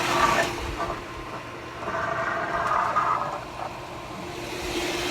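Pool pump motor running steadily with a hum and a rushing hiss. It is starting and running normally again now that its failed capacitor, which had left it only humming, has been replaced with a new 30 µF, 370 V capacitor.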